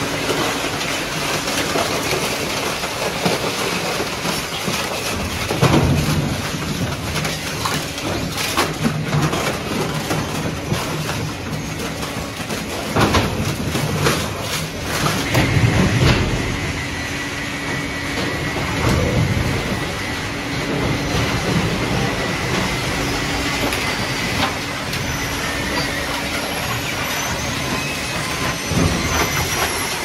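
Refrigerator recycling line running: steady rattling and clanking of a steel chain-plate conveyor and crushing machinery, with heavy knocks now and then. A thin high squeal joins in from about halfway.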